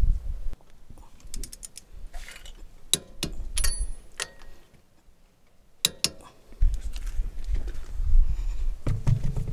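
Torque wrench ratcheting on the wheel-spacer lug nuts as they are torqued to 100 foot-pounds: a run of sharp metallic clicks over the first few seconds, then a single click. A low rumble of handling noise starts near the end.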